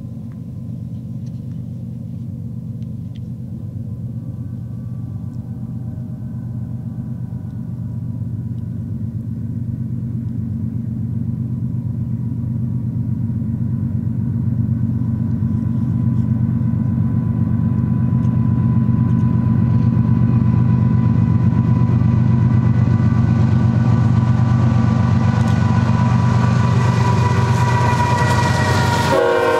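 GE ES44C4 diesel locomotive hauling a double-stack container train, approaching and drawing level: a low engine rumble that grows steadily louder, with a faint steady whine above it that strengthens over the last ten seconds or so.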